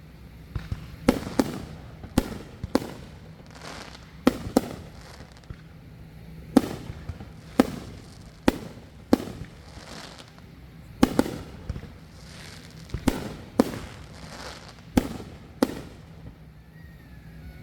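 Fireworks going off in a steady string of sharp bangs, roughly one a second and often in quick pairs, each followed by a short echo.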